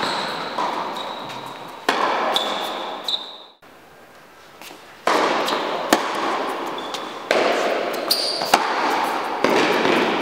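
Tennis ball struck by rackets and bouncing on an indoor hard court during a rally, the hits echoing in a large hall over a steady hiss of room noise. The sound drops out briefly about a third of the way through.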